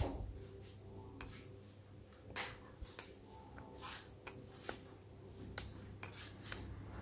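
Faint, irregular light clicks and taps with some rubbing, the sound of small hard objects being handled, about half a dozen distinct clicks spread unevenly.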